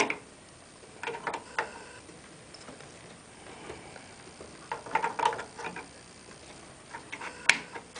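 Scattered small plastic clicks and taps from a RAM stick being handled at a motherboard's memory slots and their retaining clips, in short clusters about a second in and around five seconds in, with a single sharper click near the end.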